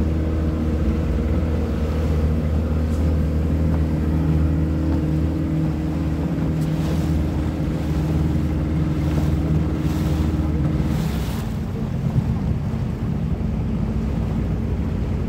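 Motorboat engine running steadily with a low hum, heard from aboard, with water washing past the hull and wind on the microphone. The engine note changes about eleven seconds in.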